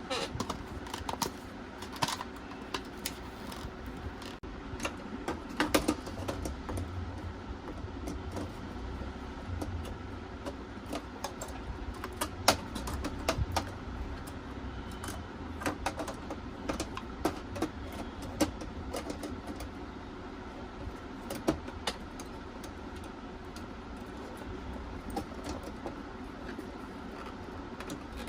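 Scattered clicks, taps and small knocks of hands handling parts inside a desktop PC case while fitting an SSD, over a steady low background hum.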